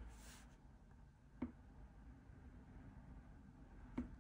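Near silence with a marker coloring on paper: a brief faint scratch of the felt tip at the start and two light ticks of the tip on the paper, about a second and a half in and near the end.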